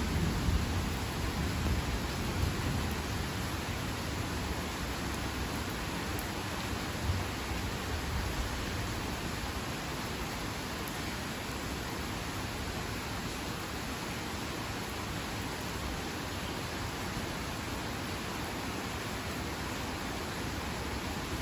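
Heavy rain falling steadily on open water and grass, an even hiss. A low rumble of thunder fades out over the first few seconds.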